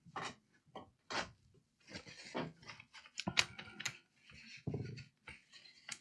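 Short, irregular scratchy scrapes and light taps of small tools worked over a laptop motherboard during cleaning.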